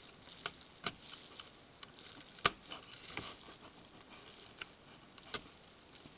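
Faint, scattered small clicks of a thin metal tool working an E-ring off the end of a laser-printer drum cartridge's axle shaft, metal catching on metal and plastic. The sharpest click comes about two and a half seconds in, another near five seconds.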